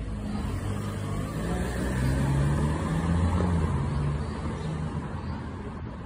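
Low rumble of a motor vehicle engine, growing louder about two seconds in and easing off again.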